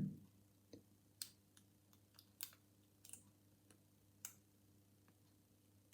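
Faint, irregular little metallic clicks of a dimple pick working the pins of a Mul-T-Lock dimple padlock core under a tension tool, about ten of them: pins setting and dropping as the lock is picked.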